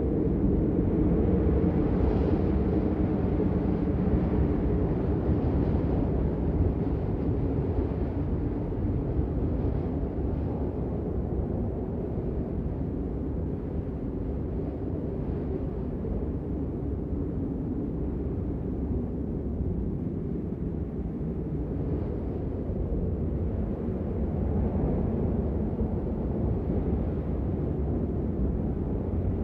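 Steady low rumbling outdoor ambience during snowfall, with no distinct events. It is a little louder in the first few seconds and eases slightly toward the middle.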